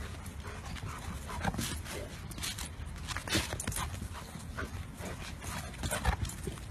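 A golden retriever scrambling about on grass, with irregular short scuffs and rustles and no barking.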